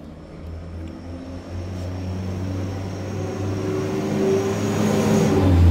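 A motor engine droning steadily, getting gradually louder toward the end, with a faint high whine above it.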